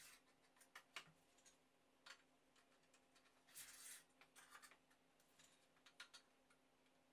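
Faint handling sounds of a wooden dowel and a 3D-printed plastic fitting: scattered light clicks and two short scraping rustles, one at the start and one about halfway through.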